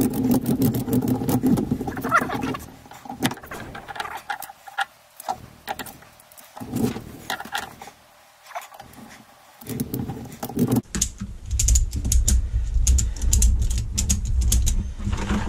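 A ratchet tie-down strap being handled and tightened around a motorcycle shock absorber spring: the webbing and metal ratchet buckle rattle and click, with short pauses. From about eleven seconds in comes a quick run of ratchet clicks as the strap is cranked to compress the spring, over a low rumble.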